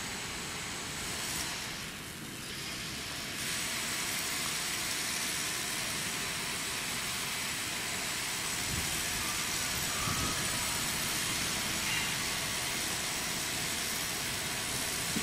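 Trains running on the line, heard as an even rumble and hiss: a Siemens electric suburban train, then, from about three seconds in, an approaching V/Line VLocity diesel railcar set.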